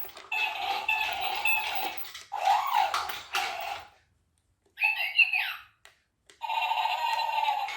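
Chad Valley remote-control toy robot playing its electronic robot sound effects: warbling, ringtone-like synthesized tones in several short runs with brief gaps between them.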